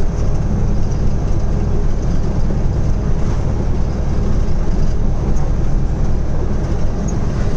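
Car-carrier truck's engine running steadily with road noise while under way, heard from inside the cab as a low, even drone.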